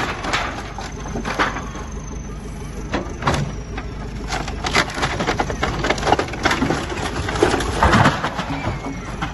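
A JCB backhoe loader's diesel engine running under load while its backhoe arm tears into a wooden building, with repeated cracks and crashes of splintering timber and falling boards.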